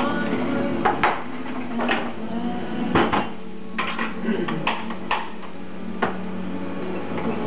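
Clinks and sharp knocks of metal and ceramic espresso-bar gear being handled at an espresso machine, a knock every second or so, over a steady low hum.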